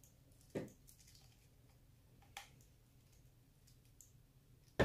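A few sparse clicks and knocks from hand tools and small plastic RC axle parts being handled: a dull knock about half a second in, a lighter click a couple of seconds later, and a sharp, louder click near the end.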